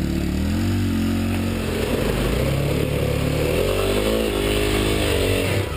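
Dirt bike engine running loud as it is ridden, its note rising and falling with the throttle, over a steady hiss.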